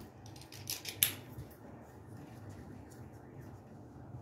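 A few light clicks and taps in the first second or so, one sharper than the rest, from a duplex receptacle and its wires being handled; a faint steady low hum sits underneath.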